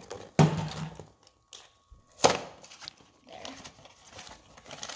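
Small cardboard blind box and the plastic wrapping inside being handled and pulled open by hand: crinkling and tearing, with two sharp, loud crackles, one about half a second in and one about two seconds in.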